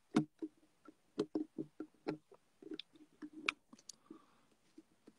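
A string of soft, irregular clicks and taps close to the microphone, a dozen or so spread unevenly, with a few sharper ones among them.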